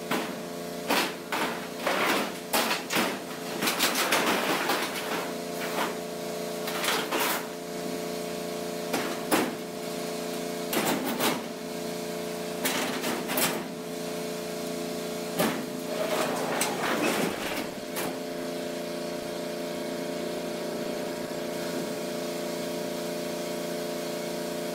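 Large corrugated sheet-metal building doors being pushed open, rattling, scraping and clanking in a series of sharp knocks over the first eighteen seconds or so. A steady hum of several tones runs underneath.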